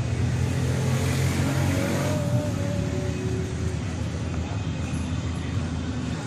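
A steady low motor rumble, like a running engine.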